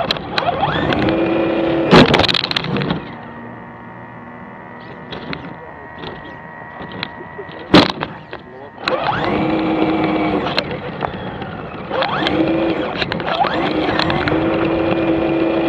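Electric motor of a radio-controlled car whining in bursts as it is driven, rising in pitch as it speeds up and then holding, with a quieter lull in the middle. Two sharp knocks, about two seconds in and about eight seconds in, are the loudest sounds.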